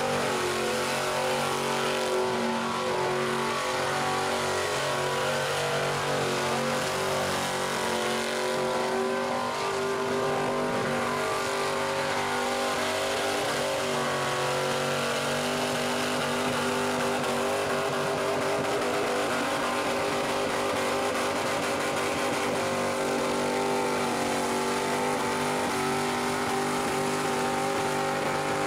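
An old Daimler sedan's engine held at high revs through a sustained burnout, its rear tyres spinning against the pad. The engine note stays steady, wavering only slightly in pitch.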